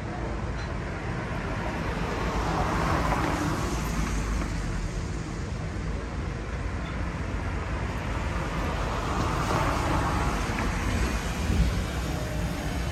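City street traffic: two vehicles pass one after the other, the first swelling and fading about two to four seconds in and the second about nine to eleven seconds in, over a steady low traffic rumble. A brief low thump comes near the end.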